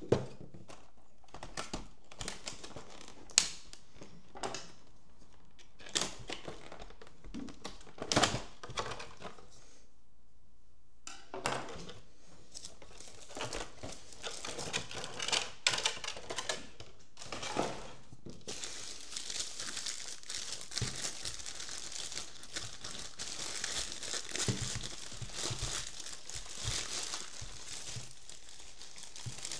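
Plastic packaging handled by hand: a clear plastic clamshell and a soft plastic wrap crinkling and crackling. At first there are scattered sharp crackles with a short pause about ten seconds in. From about two-thirds of the way through the crinkling is continuous, as the wrap is worked off.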